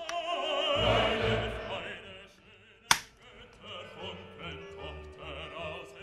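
Operatic classical singing with strong vibrato over orchestral backing, as background music. A single sharp click cuts through it about three seconds in.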